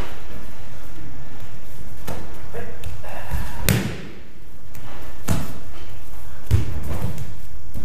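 Thumps of a body and feet hitting padded training mats as an aikido partner is thrown into a breakfall. There are about four sharp thuds, the loudest just before four seconds in.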